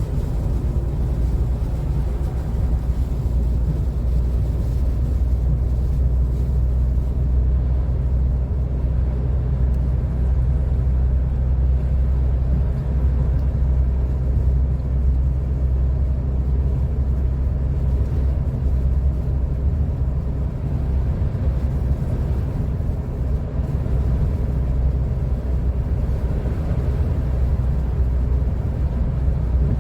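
Steady low rumble of a car driving on a slushy, snow-covered road, heard from inside the cabin: engine and tyre noise, unchanging throughout.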